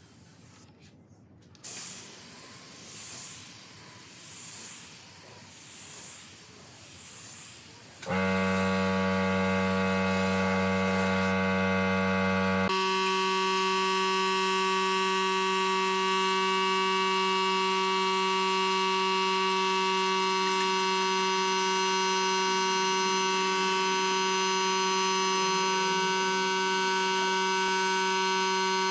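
Air spray gun hissing for several seconds as it sprays finish. About eight seconds in, a loud steady chord of background music cuts in, changes to a new held chord a few seconds later, and holds.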